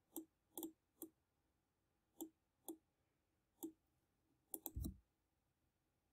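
Faint computer mouse clicks, about nine at irregular intervals, with a quick run of three near the end, the last carrying a dull thud.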